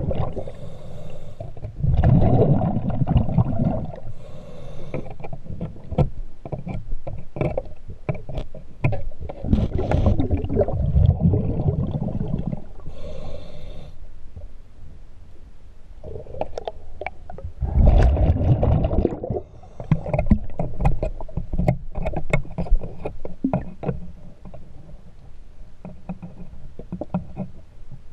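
A diver breathing through a scuba regulator, heard underwater: a short hiss on each breath in and a low bubbling rumble on each breath out, repeating every few seconds. Sharp clicks and knocks come between them.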